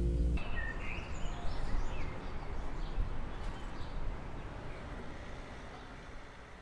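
Outdoor ambience: a steady background hiss with a few short bird chirps, fading out slowly. A sustained chiming music note cuts off about half a second in.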